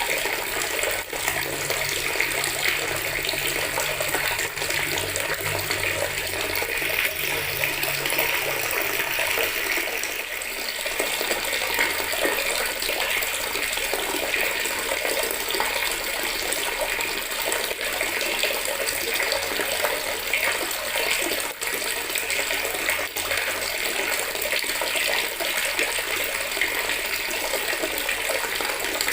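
Water tap running steadily into a plastic bucket, the stream splashing into the water already collected in it.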